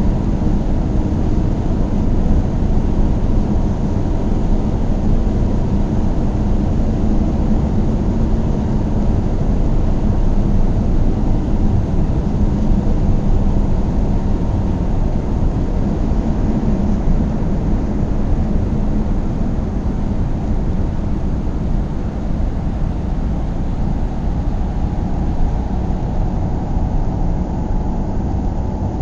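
Car driving along at a steady speed: a constant low drone of engine and tyre road noise.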